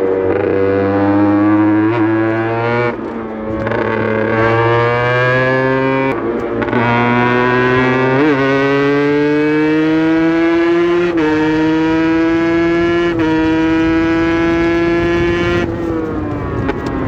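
Aprilia RS 125's single-cylinder two-stroke engine pulling hard under load, its pitch climbing slowly and broken by several brief gear changes. The note falls away near the end as the throttle eases.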